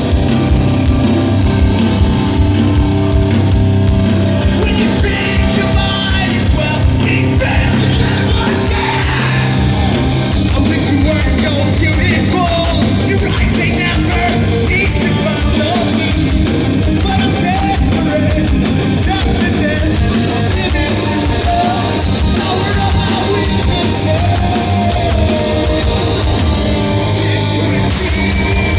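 Live heavy rock band playing loudly, with distorted guitars, bass and pounding drums under a yelled and sung vocal.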